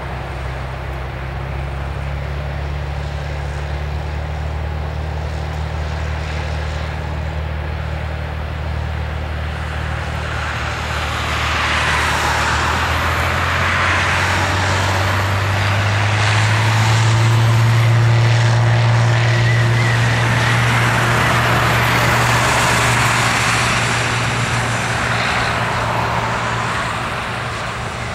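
Cessna T206H's turbocharged six-cylinder piston engine and propeller droning through a takeoff run. The drone rises in pitch and loudness as takeoff power comes in, is loudest about two-thirds of the way through as the plane rolls past, then fades as it moves away down the runway.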